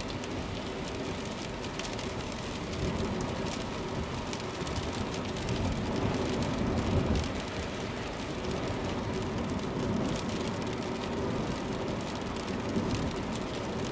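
Road noise inside a moving car on a wet road: a steady hiss of tyres on wet asphalt over the engine's hum, gathering speed downhill.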